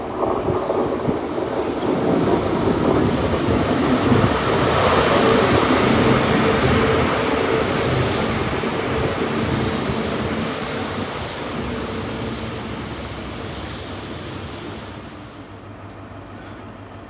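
GWR High Speed Train (InterCity 125) with Class 43 diesel power cars passing through at speed: engine and wheel noise swells to its loudest about five seconds in as the train goes by close, then fades steadily as it draws away.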